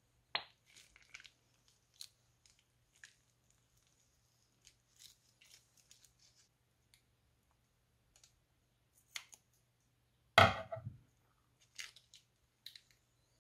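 Slime squeezed from a plastic piping bag onto slime in a bowl: scattered small crackles and pops, with one louder, longer crackling squelch about ten seconds in.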